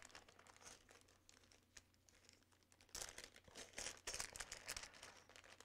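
Faint crinkling and rustling of plastic packaging being handled, in short bursts starting about three seconds in after a quiet stretch.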